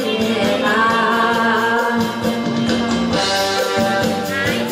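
A song with a drum-backed instrumental track, a young man's voice singing held notes over it through a handheld microphone and PA system.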